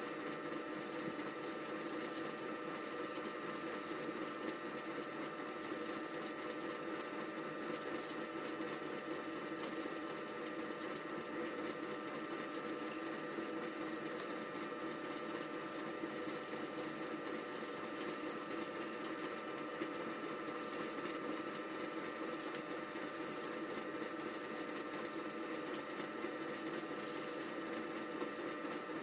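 Steady, fast mechanical chatter with scattered light clicks, the sped-up audio of a time lapse of an engine block being cleaned.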